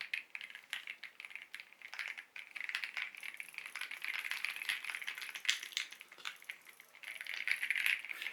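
Fast, continuous typing on the Lingbao K98 Pro mechanical keyboard: a dense clatter of key clicks that keeps going without pause.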